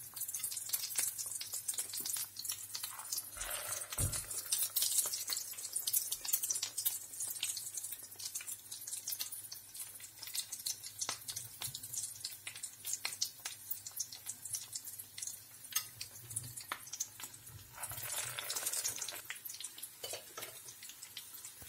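Hot oil crackling and sizzling in a frying pan as egg-coated potato chops (aloo chops) shallow-fry. The sizzling swells for a moment near the end as another chop goes into the oil.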